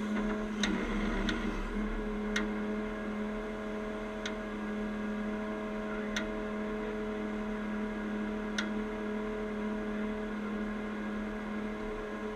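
Heavy truck diesel engine idling steadily, with a few sharp clicks at irregular intervals.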